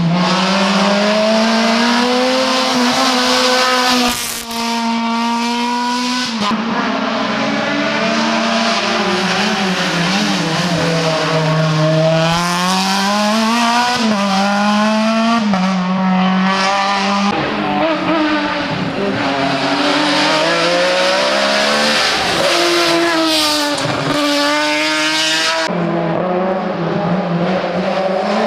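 Race car engine running hard through the whole stretch, its pitch climbing and dropping again and again as it revs up and the revs fall, with a brief dip in loudness about four seconds in.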